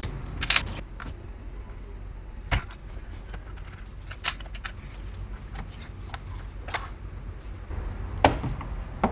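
A handful of sharp clicks and knocks, a second or two apart, as the plastic mechatronic electronic unit of a ZF 6HP26 transmission is unbolted and lifted off its metal hydraulic valve body, over a low steady hum.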